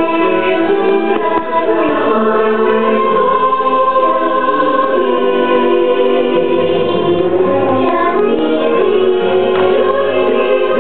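Choral music: a choir singing long, held notes.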